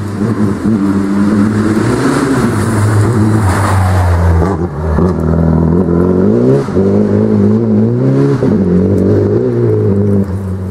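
A rally car's engine revving hard out of sight, its pitch climbing and dropping again and again as it changes gear. There is a loud rushing noise about three to four seconds in.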